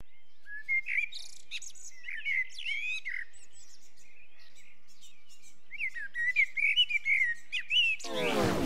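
Small songbirds chirping and warbling in two stretches, with a pause of about two seconds in the middle. Near the end a falling electronic sweep comes in.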